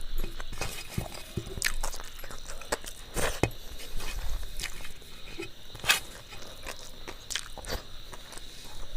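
A person chewing and biting food, with wet mouth clicks and smacks at irregular intervals.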